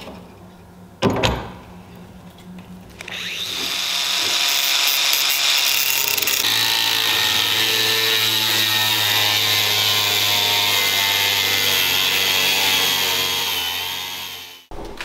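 A single knock about a second in. Then an angle grinder with a cut-off disc spins up about three seconds in and cuts through a threaded steel rod: a steady high whine over grinding noise that stops abruptly just before the end.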